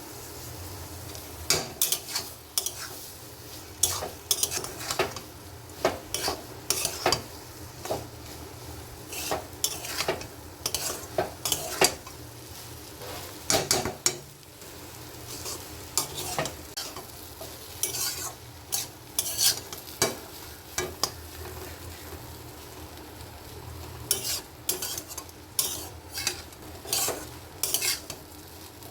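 A spatula stirring food in a frying pan, with irregular scrapes and knocks against the pan over a steady faint sizzle.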